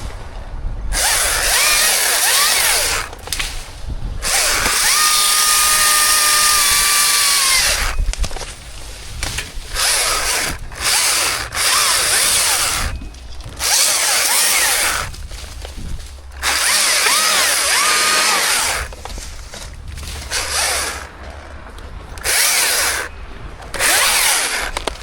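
Chainsaw cutting wood in a string of short bursts, each one to three seconds long, with brief pauses between them. The longest burst comes about five seconds in.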